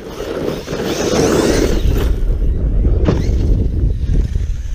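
Wind rumbling on the microphone over an Arrma Kraton 6S electric RC truck driving across rough dirt and launching off a jump, with two sharp knocks about two and three seconds in.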